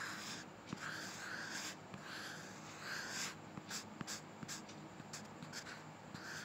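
Graphite pencil scratching on paper as a curve is drawn in short sweeping strokes. About halfway through it changes to quick, sharp little ticks as small marks are dashed in.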